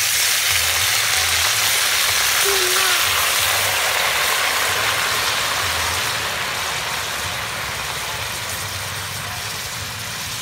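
Coca-Cola poured into a hot pot of roasted chicken, sizzling and hissing loudly as it boils on contact and throws up steam; the hiss starts suddenly and eases off over the last few seconds.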